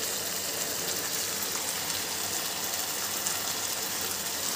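Chicken, green capsicum and tomato-ketchup sauce sizzling steadily in a frying pan on the stove, with a constant hiss and faint crackles, as boiled spaghetti is added.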